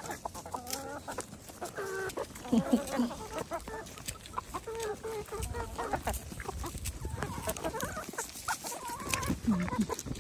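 A flock of backyard chickens clucking, a steady chorus of overlapping, wavering calls, with scattered sharp clicks.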